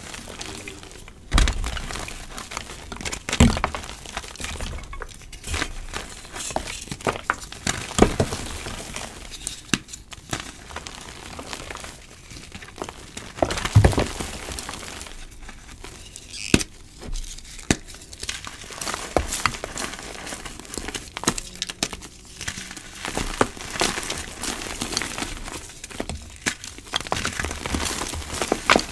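Bare hands crushing and crumbling chunks of gym chalk into powder: dry, gritty crunching with a constant run of irregular crackles and a few louder snaps as bigger pieces break.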